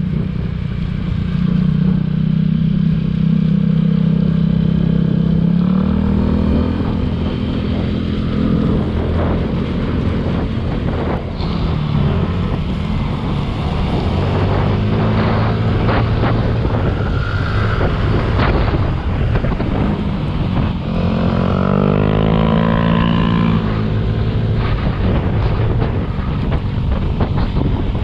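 Motorcycle engine running while riding, its pitch stepping up about six seconds in and shifting with the throttle. About two-thirds of the way through, a higher engine note rises and falls.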